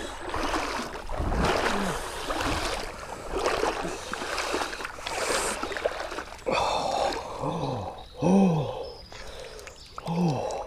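Water splashing and sloshing as a person wades through a river, followed in the second half by three or four short, pitched groans from the wader at the freezing water.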